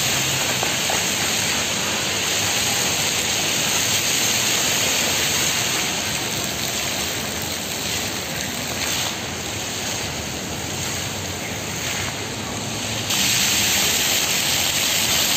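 Plaza fountain jets spouting and splashing onto wet paving, a steady rushing hiss of water. It steps up suddenly in loudness about thirteen seconds in.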